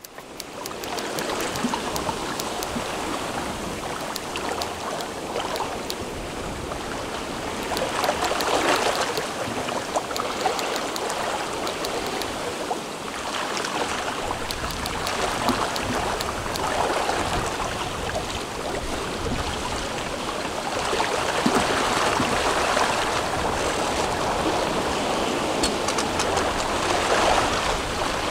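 Rushing sea water and waves, a steady hiss that swells and eases every few seconds.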